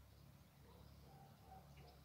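Near silence: a few faint, short bird chirps over a low steady hum.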